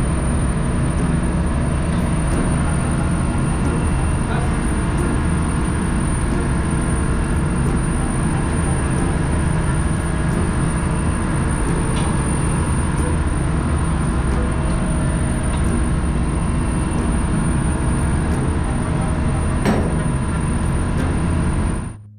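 Steady engine-room machinery drone, a constant low hum with several held tones, with a couple of faint metal taps from tools. It cuts off suddenly near the end.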